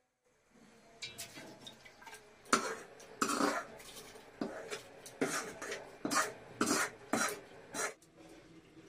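Cooked vegetables being scraped out of a metal frying pan into an aluminium pot, with about ten separate scrapes and knocks of a utensil against the metal starting about a second in.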